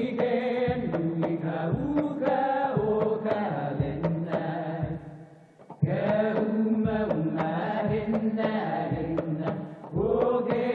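Music with a chanted, sung vocal line, going in phrases with a short break about halfway through and another near the end.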